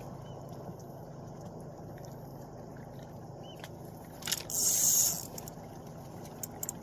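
A fishing rod cast: a sharp click about four seconds in, then about a second of loud high hissing whizz as the line pays off the reel, a cast that ends in a massive overrun, over a steady low background hum.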